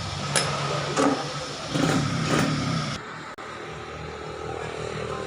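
Tyre-changing machine at work: a steady low motor hum with several sharp clanks and short bursts in the first three seconds. About three seconds in it drops abruptly to a quieter, duller steady hum.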